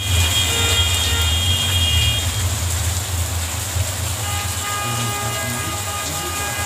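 Rain falling on a wet street and puddles: a steady hiss over a low rumble. A high steady tone sounds for the first two seconds, and another set of steady tones comes in from about four seconds in.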